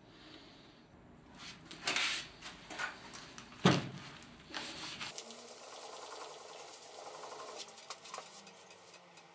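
Steel hammer head rubbed back and forth on a sheet of sandpaper: a run of irregular rasping strokes, with one sharp knock a little under four seconds in, then softer, steadier rubbing.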